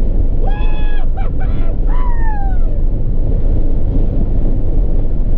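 Car cabin at high speed: a loud, steady rumble of engine, road and wind noise. About half a second in there is a brief steady high tone, and about two seconds in another that falls in pitch.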